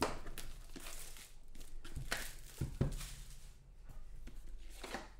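Hands handling a sealed trading-card box, its plastic wrapping crinkling, with a few knocks as the box is turned and set on the table.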